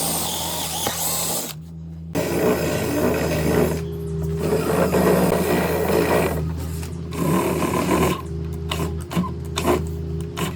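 An electric power tool's motor running steadily while it works wood, the rough cutting noise stopping and starting several times.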